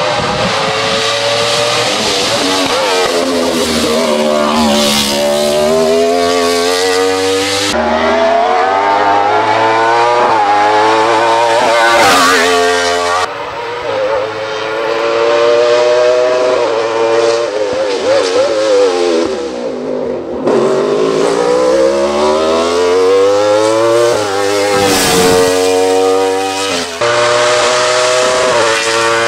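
Wolf GB08 Thunder sport-prototype race car at full racing speed. Its engine revs high, the pitch climbing through quick upshifts and dropping on braking for corners. The sound jumps abruptly a few times where separate passes are cut together.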